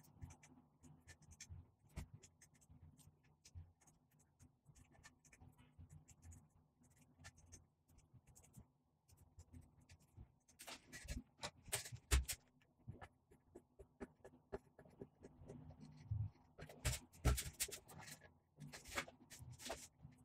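Faint scraping and light tapping of a thin wooden stick worked into a box's finger joints to spread glue. A few sharper clicks and knocks come about eleven to twelve seconds in, and again from about seventeen to nineteen seconds as the wooden parts are handled.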